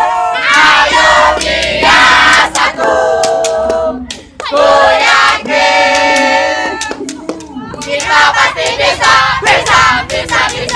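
A group of teenage students chanting and singing loudly in unison in short phrases, with hand claps, thickest near the end.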